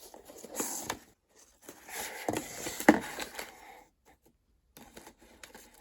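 Hands opening a candle subscription box: paper and cardboard packaging rustling and scraping, with a sharp knock about three seconds in.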